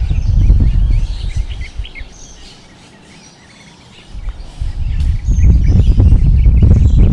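Strong wind gusting against the microphone as a heavy low rumble that dies down about halfway through and then builds back up. Birds chirp throughout.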